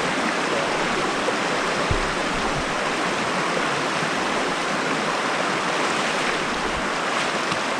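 Creek water rushing steadily, with a few faint low thumps about two seconds in.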